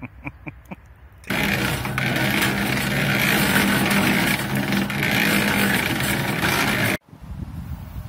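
Portable drum cement mixer running, its drum turning and churning a batch of mortar: a loud, steady mechanical hum with a rushing churn that starts suddenly about a second in and cuts off abruptly near the end. Before it comes a short run of rapid, evenly spaced pulses.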